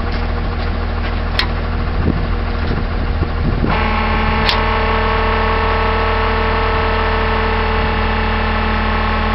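Tow truck engine running steadily; about four seconds in, as the winch lever is worked, a louder, steady whine joins in as the winch engages to pull on the cable. Two sharp clicks, one before and one just after the change.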